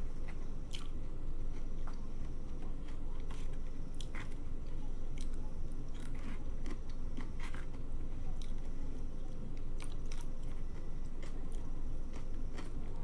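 A person eating close to the microphone: chewing with wet mouth sounds and irregular small clicks and smacks.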